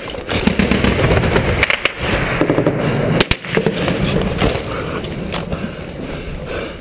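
Firefight gunfire heard through a soldier's helmet-mounted camera: scattered sharp shots and cracks, the clearest about three seconds in, over a continuous rumble of noise on the microphone.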